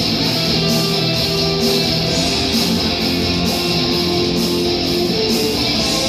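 Live rock band playing an instrumental passage: electric guitar strumming over a steady beat that repeats about twice a second.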